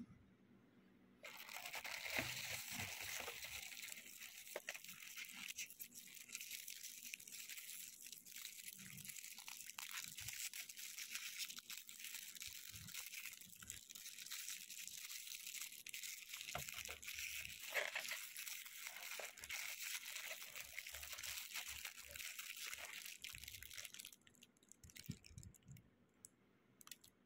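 Clear cellophane wrappers on individually wrapped tarts crinkling and rustling as they are handled and pulled open. The sound starts about a second in and stops a few seconds before the end.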